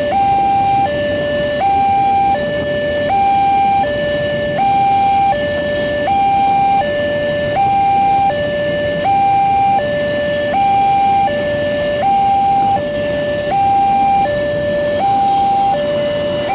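Railway level-crossing electronic alarm sounding its two-tone warning, switching between a lower and a higher tone about every three-quarters of a second. Beneath it is the steady noise of a container freight train passing over the crossing.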